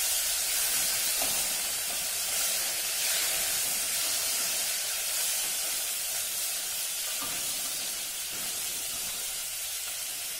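Wet, blanched chicken pieces sizzling in hot oil with whole spices in a steel saucepan, a steady hiss of frying and steam that slowly fades.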